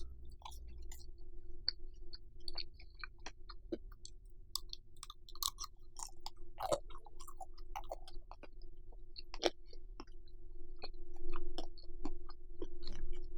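Close-miked chewing of bacon-wrapped rice cakes, with irregular wet mouth clicks and smacks.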